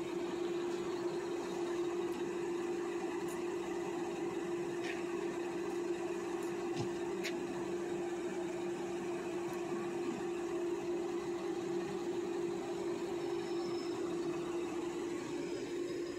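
Steady machine hum with one strong constant tone, unchanging throughout, and a couple of faint clicks about five and seven seconds in.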